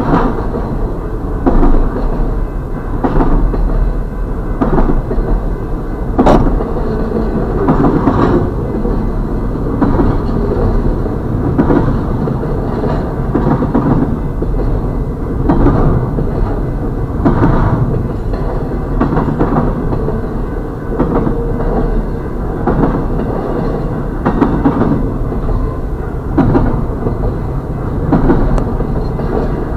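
Double-stack intermodal freight cars rolling past a grade crossing: a steady rumble of wheels on rail with irregular sharp clacks every second or two as wheels cross rail joints.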